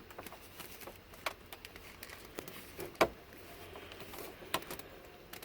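Scattered plastic clicks and creaks of a Chevy Tahoe dash trim panel being worked loose from its clips, with the loudest click about three seconds in.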